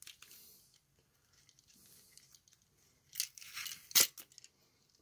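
Adhesive tape being peeled off the load-side terminals of a Leviton GFCI receptacle: faint rustling, then a short stretch of ripping about three seconds in that ends in one sharp snap.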